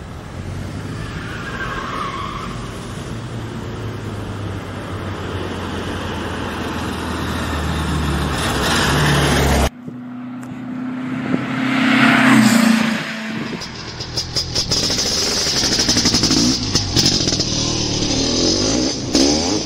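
Car driving: engine running with road noise, its pitch rising shortly before a sudden cut about ten seconds in. After the cut, another vehicle sound swells to a peak a couple of seconds later, then carries on more noisily.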